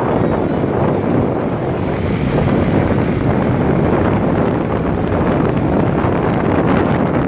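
Steady, loud rush of wind over a microphone mixed with the rumble of a moving vehicle, recorded while travelling fast along a road.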